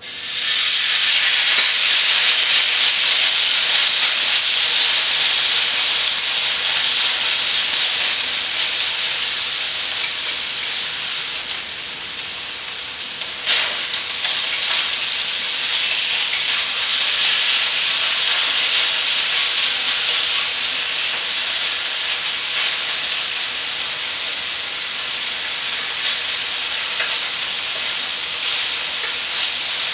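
Sliced marinated beef frying in hot oil in a pan, a loud steady sizzle that starts suddenly as the meat goes in. There is one brief knock about halfway through.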